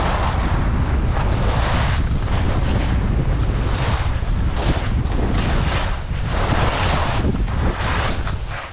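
Wind buffeting the microphone of a skier's camera during a descent, a steady low rumble, with the scrape of skis on firm packed snow swelling again and again as the skier turns.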